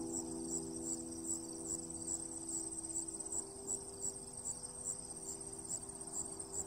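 Insects chirping in a high, regular pulse, a little over two chirps a second.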